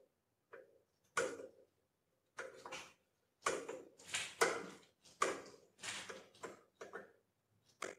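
A hand tap cutting threads in the banjo's clamping bolt hole, guided by the mill's chuck and turned in short strokes: a string of irregular metallic creaking, scraping bursts, about eight in all.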